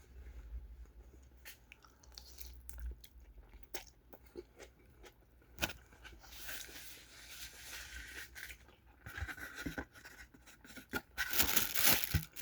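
Eating and handling of a takeout meal: scattered small clicks and crinkles, with longer rustling stretches about six seconds in and again near the end.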